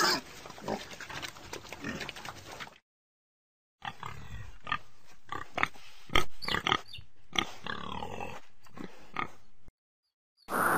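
Recorded pig grunting and oinking, a run of short grunts that stops for about a second and then starts again.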